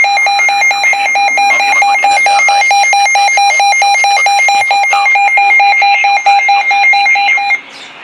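Weather radio's warning alarm: a loud, rapid electronic beeping at about four beeps a second that stops shortly before the end. It signals that a severe thunderstorm warning has been received.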